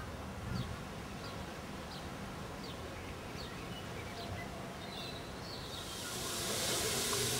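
Low steady hum of a First Great Western HST Class 43 power car idling at a standstill, with faint short high chirps repeating about every two-thirds of a second. Near the end a steady hiss swells up, steam escaping from a standing steam locomotive.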